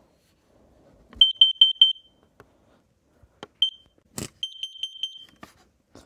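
Kidde carbon monoxide alarm beeping its CO-detected warning: four quick high-pitched beeps about a second in, a single beep, then a longer run of quick beeps. Sharp clicks fall between the beep groups.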